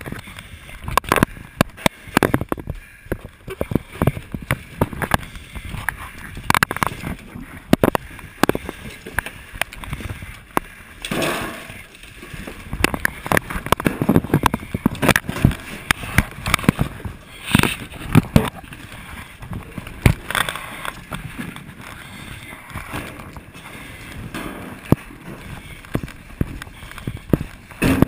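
Handling noise on a helmet-mounted camera: irregular knocks, bumps and rubbing from a firefighter's gloves, hose and turnout gear as he moves, with a few short bursts of rushing noise.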